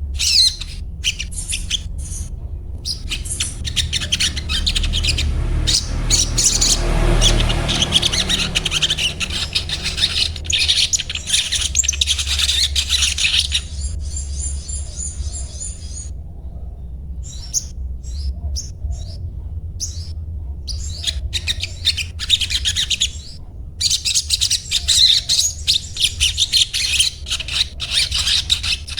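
Sogon, a sunbird, twittering in a fast run of high chirps and 'cuet cuet' calls, the rapid chatter keepers call ngriwik, with a brief pause a little past the middle. A steady low hum runs underneath.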